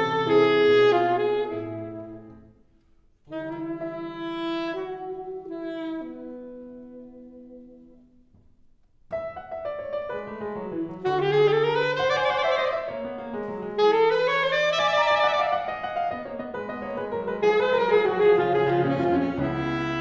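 Live performance of a contemporary chamber piece for wind instrument and piano. A held chord dies away over the first couple of seconds and a quieter phrase follows. After a short pause about 8 s in, a faster, louder passage begins with quick rising runs.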